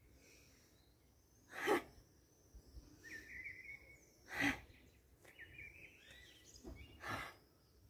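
A person breathes out hard on a short 'ha' three times, about two and a half seconds apart. These are the sharp exhalations of yoga's cat-cow pose, one with each rounding of the back.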